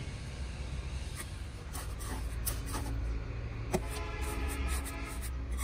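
Wet cement mortar being rubbed and scraped on the inside of a concrete planter mould, short rasping strokes over a low steady rumble. From a little past halfway, a held tone of several pitches sounds in the background.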